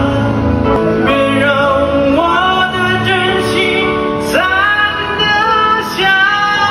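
A man singing a slow Mandarin pop ballad into a handheld microphone over a backing track, holding long notes that step upward in pitch.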